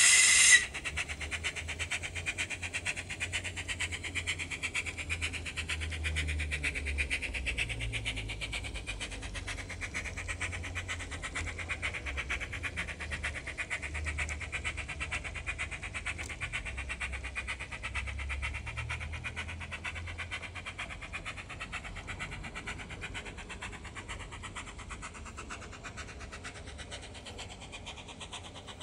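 Sound-fitted Bachmann OO9 Quarry Hunslet model locomotive: its Zimo decoder plays steam-loco chuffing through the small onboard speaker, a rapid, even beat. There is a brief louder sound right at the start. A low rumble from the model running on the track fades out about two-thirds of the way through, and the whole sound slowly grows fainter as the loco runs away round the layout.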